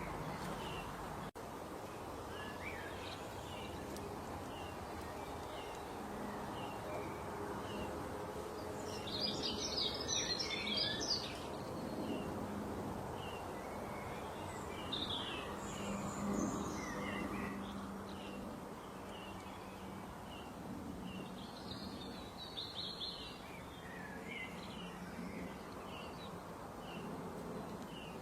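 Small birds chirping: many short, high chirps throughout, with a denser, louder flurry of chirping about ten seconds in and again a little past twenty seconds, over a steady low background hum.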